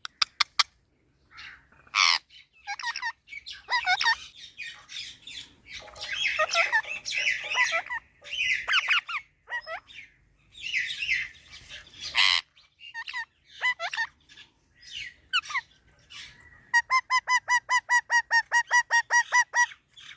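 Chestnut-tailed starlings calling back and forth in a varied mix of harsh chattering squawks, clicks and short whistled glides. Near the end one bird gives a fast, even run of repeated notes, about five a second.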